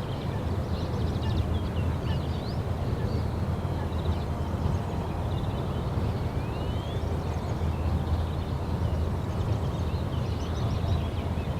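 Outdoor ambience: a steady low rumble, with small birds chirping now and then, including a rising whistle about seven seconds in and a cluster of chirps near the end.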